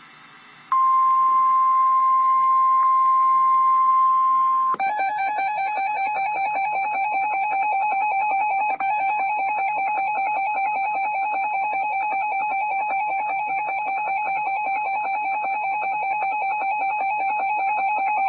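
Emergency Alert System alert tones on a broadcast: a steady single high tone for about four seconds, then a harsher, buzzing attention tone held for about fourteen seconds that heralds a flash flood warning.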